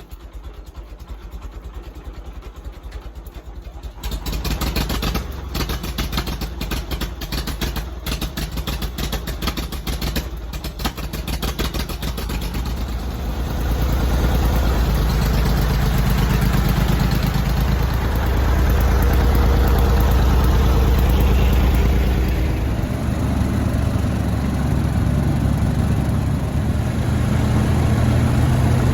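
Tractor engine running on a gravel road, with dense rattling and knocking for several seconds before the engine settles into a steady, louder, working note partway through.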